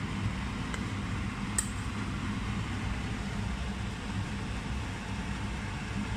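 A steady low hum with hiss, like a kitchen appliance or fan running, with two light clinks of a metal spoon against a stainless-steel pot, about one and one and a half seconds in.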